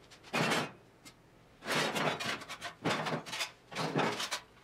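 Scraping and rustling in four short bursts, each under a second, as debris and old interior material are pulled from the floor of a stripped Triumph GT6 body shell.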